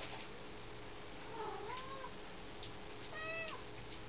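Domestic cat meowing twice: a faint wavering mew about a second and a half in, then a clearer, louder meow about three seconds in that drops in pitch at the end.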